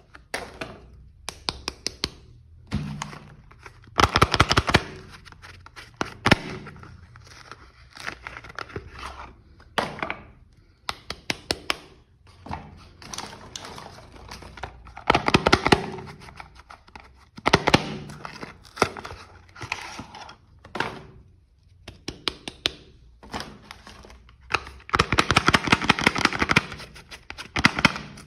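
Soap being unwrapped and handled close to the microphone: packaging rustling in bursts every few seconds, with sharp taps and clicks in between.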